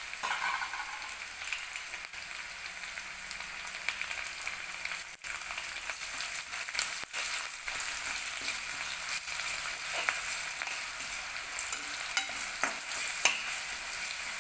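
Chopped onions and garlic-coriander paste sizzling in hot oil in a steel kadhai, stirred with a perforated steel spatula that scrapes and clicks against the pan now and then.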